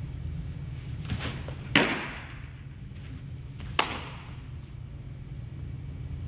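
Baseball play: two sharp impacts about two seconds apart, the first the louder with a short ring after it, preceded by a fainter knock, over a steady low hum.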